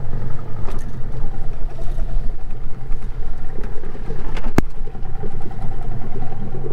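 Small outboard motor on a Gheenoe running steadily, with a single sharp click about four and a half seconds in.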